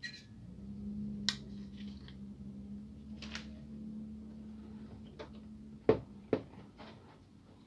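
Hands handling a new OPC (photoconductor) drum as its black protective sleeve is slid off: light scrapes and rustles, then two sharp knocks about half a second apart near the end. A faint steady low hum runs underneath.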